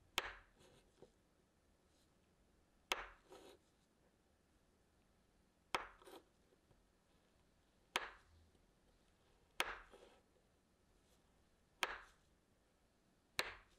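Kitchen knife slicing a freezer-chilled, sugar-coated butter cookie dough log into thick rounds: seven cuts about two seconds apart, each ending in a sharp knock of the blade on a wooden cutting board with a short tail after it.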